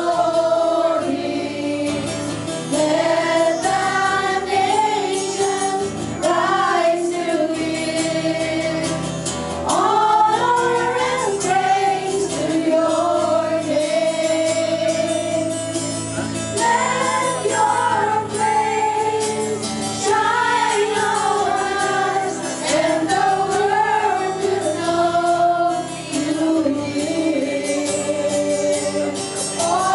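A group of women singing a Christian worship song together into microphones, the melody rising and falling with no break.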